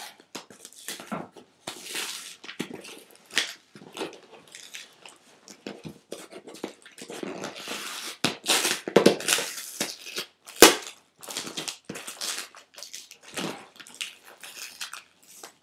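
Packaging being crinkled, crushed and pulled at by hand in an attempt to tear it open without a tool, in irregular rustling bursts, with one sharp snap about ten and a half seconds in.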